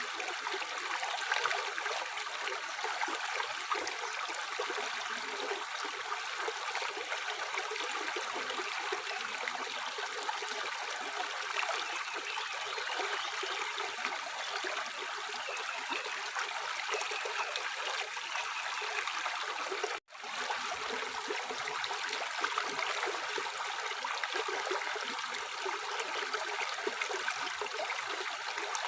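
Water running steadily from a sink tap into the basin, a constant splashing hiss. The sound cuts out for an instant about twenty seconds in and resumes at once.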